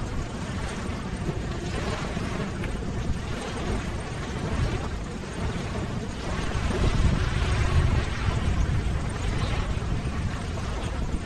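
Ocean surf: a steady rush of breaking waves with a deep rumble, swelling louder about seven seconds in.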